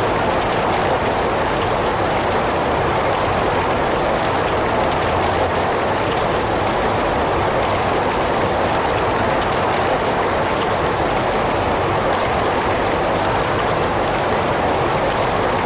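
Heavy rain falling steadily: a dense, even hiss of rain with no let-up.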